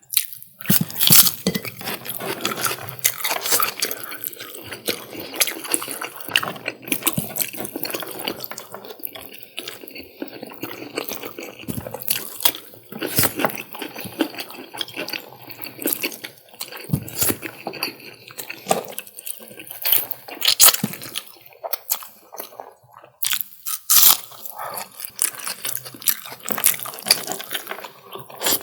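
Close-miked eating sounds: chewing and wet mouth clicks from eating chicken curry, egg curry and vegetable pulao, a dense run of small sharp clicks with a few louder ones.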